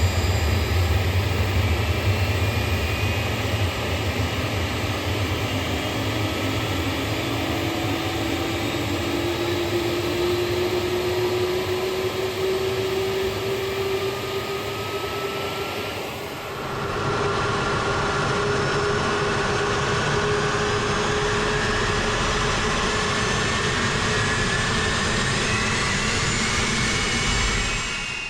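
KC-135 jet engines running, heard from the cockpit: a steady roar and low hum with whines slowly rising in pitch as the engines spool up. The sound changes abruptly about halfway through, then carries on with the rising whines.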